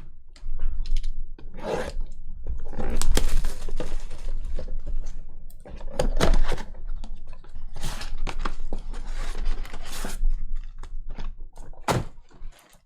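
Trading card packs being torn open and cards handled: irregular tearing, crinkling and scraping, with sharp clicks and taps of cards on the table.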